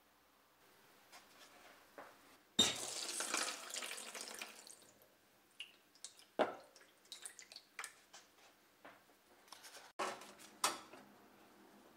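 Kitchen tap running into a plastic tub for about two seconds, starting a couple of seconds in. It is followed by scattered knocks and clicks of the tub being handled, and a second short burst of water swishing near the end.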